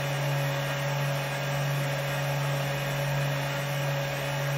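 Stepper motor of a mini lathe's electronic lead screw turning the lead screw and carrying the saddle through a 10 mm test move. It gives a steady low hum with a fainter, higher whine above it.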